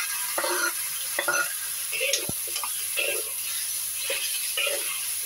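Metal spatula scraping and stirring in a wok as chicken feet fry with freshly added spice paste, over a steady sizzle. The scrapes come roughly once a second, with one sharp click about two seconds in.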